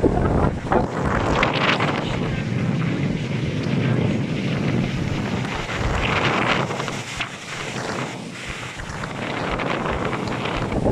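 Storm surf washing and breaking in waves, with strong gusty wind rumbling on the microphone.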